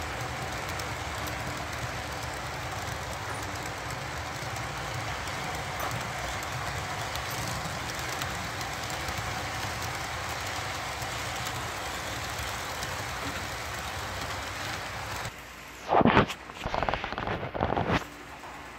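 Model freight train cars rolling along the track, a steady rolling rumble and hiss that cuts off abruptly about fifteen seconds in. A few short, louder sounds follow near the end.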